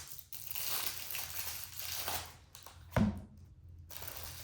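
Packaging crinkling and tearing as a deck of game cards is opened, then a single sharp knock about three seconds in.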